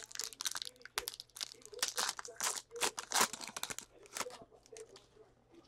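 Foil wrappers of 2016 Panini Clear Vision football card packs being torn open and crinkled by hand, a dense run of sharp crackles that dies down about four seconds in.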